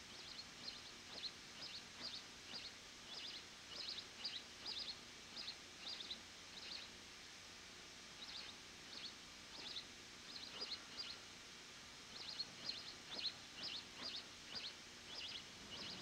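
House sparrow chirping: faint, short chirps about two a second, in three runs with brief pauses between them.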